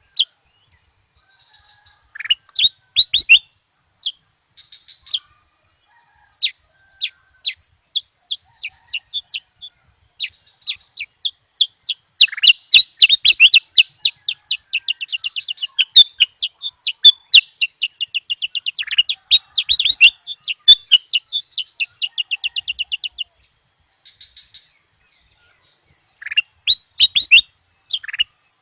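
Bulbul singing: sharp, high separate chirps that quicken into a fast rattling run of notes from about twelve seconds in. The run breaks off about twenty-three seconds in, and a few more chirps follow near the end.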